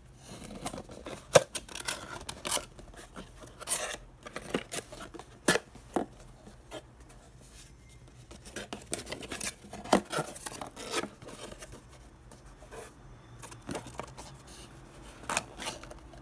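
A printed corrugated cardboard box being handled, its flaps pulled open and folded back by hand. The paperboard scrapes and rubs, with a string of sharp clicks and snaps, the loudest about a second and a half in.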